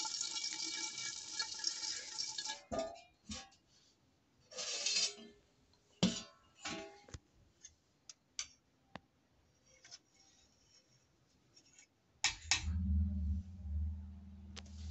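Metal clinks and knocks of a steel lid and a ladle against a steel cooking pot, scattered and sharp. A dense hiss cuts off suddenly before them, and a low steady hum comes in near the end.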